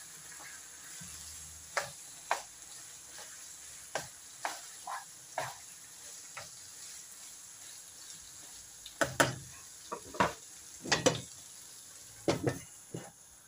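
Spatula stirring chicken and bitter gourd curry in a frying pan: separate short scrapes and taps against the pan over a faint, steady sizzle, with a cluster of louder strokes in the last few seconds.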